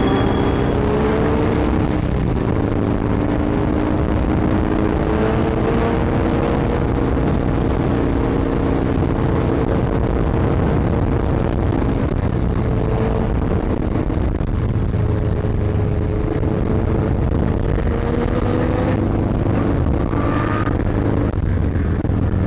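Motorcycle engine running under load while riding, its revs rising and easing back a few times, with steady wind rush over the microphone.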